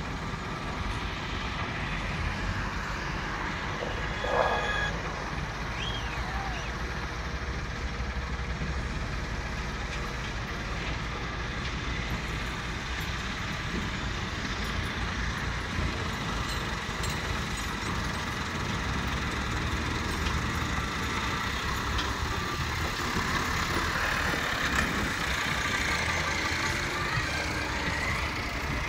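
Diesel engines of wheeled excavators running steadily under load as they dig and load earth, with a tractor engine idling. There is a brief squeal about four seconds in, and the engine noise grows louder near the end as another tractor drives up.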